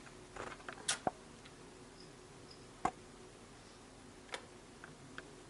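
A few scattered small clicks and taps in a quiet room, the sharpest a little under three seconds in.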